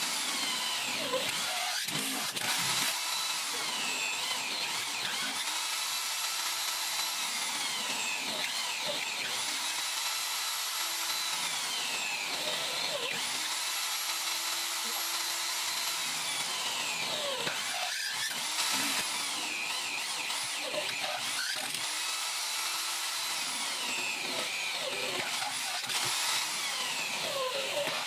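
Step drill bit in a power drill cutting hole after hole through thin metal sheet. The drill's whine rises, holds and then falls in pitch about every four seconds as each hole is cut.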